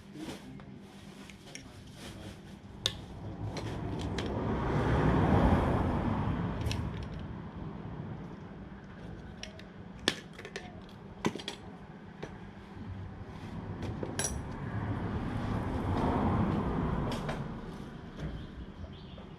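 Small metal engine parts and tools clinking and tapping as a lawn mower engine is worked on by hand, in scattered sharp clicks. Two slow swells of rushing noise build and fade, about five seconds in and again near the end.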